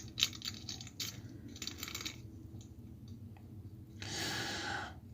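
Pokémon trading cards and their pack being handled: a quick run of light clicks and flicks in the first two seconds, then about a second of steady rustling near the end.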